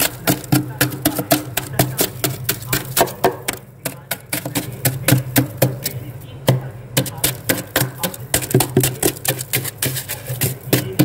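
Kitchen knife blade scraping and chipping thick, packed freezer frost, a rapid run of crunchy scrapes several a second, with brief pauses about four and seven seconds in.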